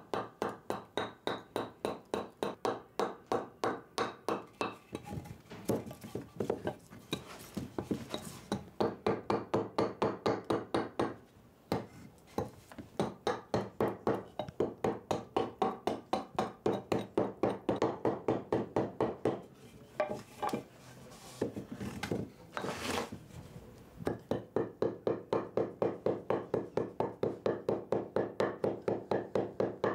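A hand tool working wood in quick, even strokes, about four a second, stopping now and then for a moment before going on.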